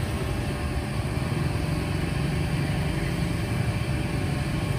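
Steady low rumble of street traffic: motorbike and vehicle engines running.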